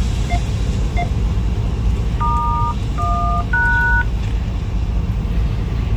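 A series of dual-tone keypad beeps like phone or radio dialing: three short blips in the first second, then three longer tones of changing pitch about two to four seconds in. Under them runs the steady low rumble of a vehicle's engine and road noise.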